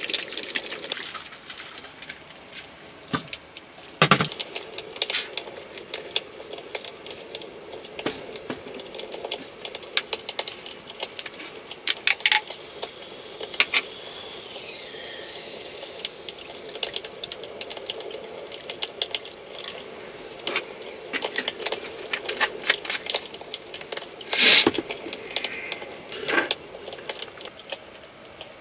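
Irregular clinks, taps and clatters of dishes, utensils and food containers being handled to set out a meal, with a louder knock about four seconds in and another near the end.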